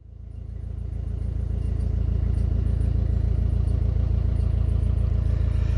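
Narrowboat diesel engine running steadily with an even low chugging, fading in over the first couple of seconds.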